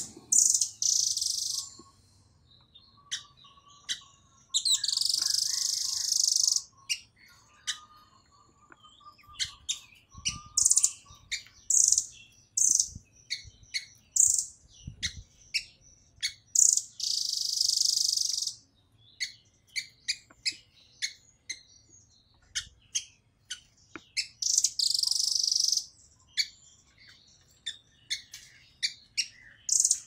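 Blue nuthatch calling in rapid-fire runs of short, sharp, high-pitched notes, broken by several harsh, buzzy bursts lasting about two seconds each.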